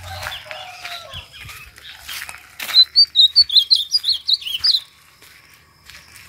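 Caged ultramarine grosbeak (azulão) singing: soft chirps at first, then about three seconds in a loud, fast two-second phrase of high warbled notes.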